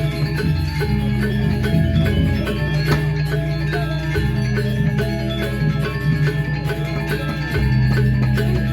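Balinese gamelan playing: metallophones struck in quick ringing notes over low held tones that change pitch every second or two.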